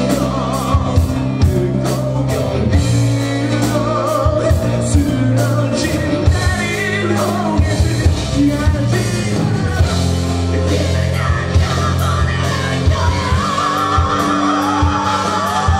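Live rock band playing, with a male lead vocal over electric guitars, bass and a steady drum-kit beat. Near the end the singer holds a long note with vibrato.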